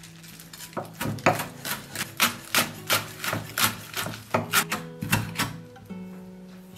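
Chef's knife chopping fresh parsley on a wooden cutting board: a quick run of sharp knocks of the blade striking the wood, about four a second, stopping near the end. Soft background music plays underneath.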